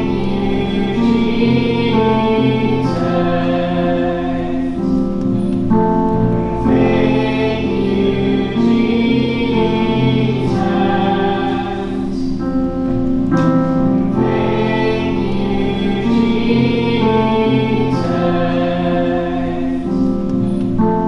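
Choral music: a choir singing sustained chords, in the style of gospel or Christian worship music.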